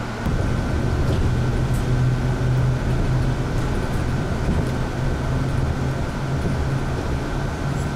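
Inside a city bus: steady low engine drone and running noise, with a thin steady whine above it. The drone gets louder just after the start.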